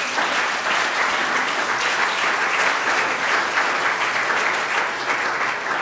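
Congregation applauding: many people clapping steadily, easing off slightly near the end.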